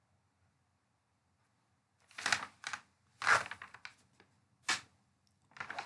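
Several short bursts of rustling noise, starting about two seconds in and coming roughly once a second, the longest near the middle.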